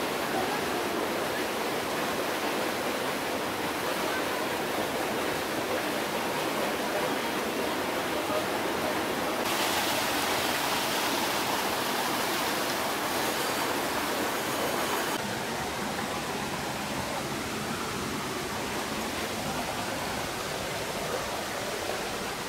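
Small waterfall and rocky mountain stream rushing, a steady water noise that turns brighter and hissier about ten seconds in for around five seconds.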